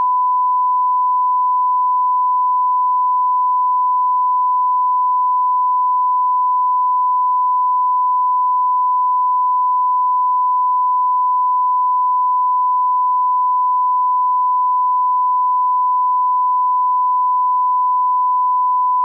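Steady 1 kHz line-up test tone, the reference tone that runs with SMPTE colour bars for setting audio levels: one unbroken pure pitch.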